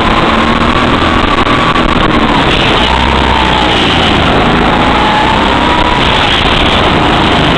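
Go-kart engine heard from a camera mounted on the kart, running loud under racing throttle. A whine in the engine note rises and falls in pitch several times as the driver accelerates and eases off.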